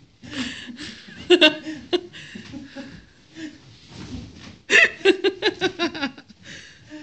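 A person laughing in two bursts: a short one about a second and a half in, then a longer run of quick laughs from near five seconds.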